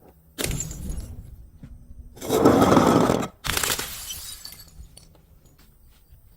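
Glass bottles smashing: three crashes of shattering glass, the middle one the loudest and longest, each trailing off into a few faint clicks.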